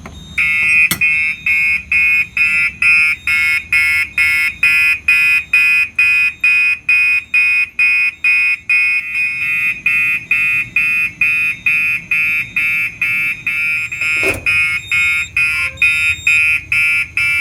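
First-generation Gentex SHG-24HW fire alarm horn sounding in march-time code: a loud, evenly pulsed horn tone at about two blasts a second, starting about half a second in.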